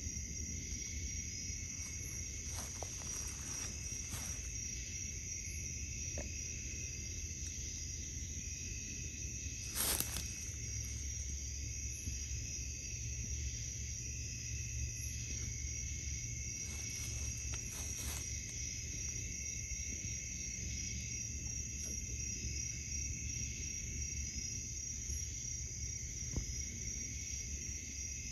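Steady chorus of night insects, with a sharp click about ten seconds in and a few fainter clicks or rustles.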